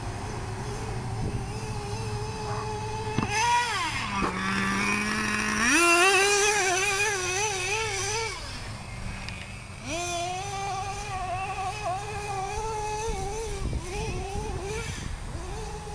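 Small nitro engine of a Traxxas RC monster truck running at high revs, its pitch wavering up and down with the throttle. Twice, around 4 and 9 seconds in, it drops to a low steady idle for a second or two before revving up again.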